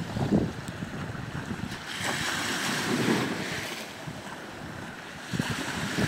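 Small sea waves washing and swelling onto a shore, with wind gusting on the microphone.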